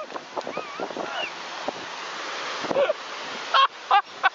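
Rushing, splashing water as a motorboat runs fast close to the bank, throwing up spray, with wind buffeting the microphone.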